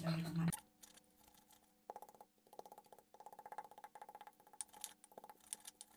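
Pestle pounding and grinding garlic, shallots and chillies in a stone mortar (cobek): from about two seconds in, a fast run of light knocks and crunches, several a second, with short pauses.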